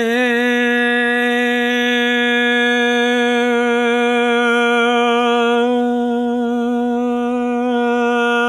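A man's voice holding one long, unbroken buzzy tone at a steady pitch: the bright, twangy 'buzzer' sound made by contracting the aryepiglottic sphincter, used as a singing warm-up. Its brightness fades somewhat past the middle and returns near the end as the contraction is eased and tightened.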